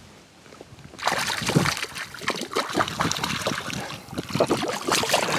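A small hooked bass thrashing and splashing at the water's surface as it is reeled in close, a fast, irregular run of splashes starting about a second in.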